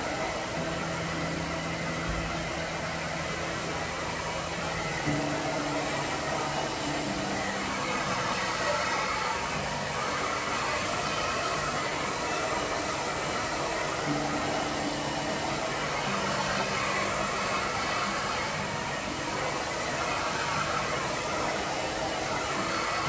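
Handheld hair dryer blowing steadily, with background music playing under it.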